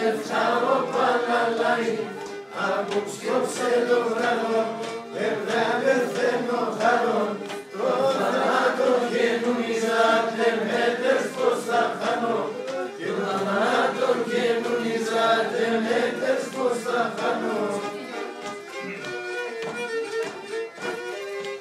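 A group of people singing a song together around a table, several voices in unison. Near the end the singing thins out and gets quieter, and a violin comes to the fore.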